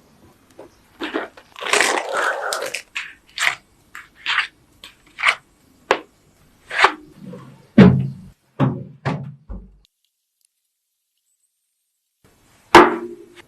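Kitchen food-preparation noises: a run of irregular knocks and taps with a brief crunching stretch, heavier thuds a little past the middle, a short silence, then one loud knock near the end.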